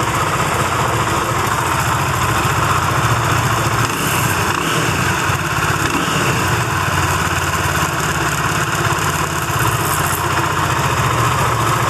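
Benelli TNT25's 250cc single-cylinder engine idling steadily, carrying a strange internal noise that is likened to a loose little nut rattling inside and is heard most near the camshafts.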